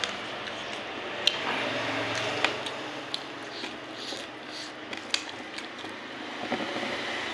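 Close eating sounds of someone chewing a meal of rice and curry, with a few sharp clicks and a low steady hum underneath.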